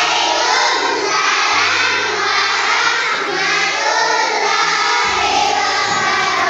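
Background music: a song sung by children's voices in chorus over a backing whose low notes hold and change every second or two.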